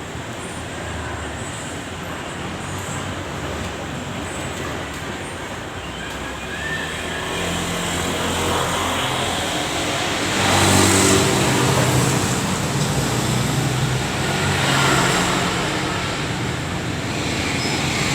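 Road traffic noise: a steady background of passing motor vehicles, swelling as a louder vehicle goes by about ten seconds in.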